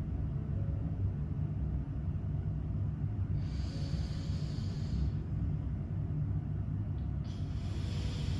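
Slow breaths drawn through one nostril during alternate nostril breathing (Anulom Vilom): two long hissing breaths, one starting about three and a half seconds in and one near the end, over a steady low hum.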